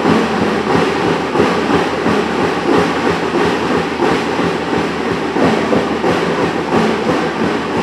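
A school drum and lyre corps playing loudly, its drums beating a steady quick marching cadence.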